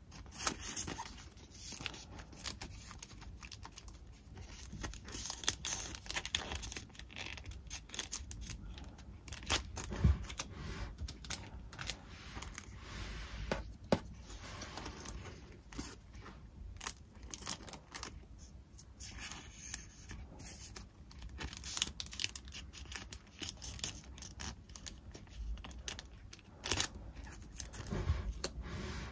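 Hands handling paper and plastic packing materials up close: rustling and crinkling with many small clicks and taps, and two sharper knocks about ten and fourteen seconds in.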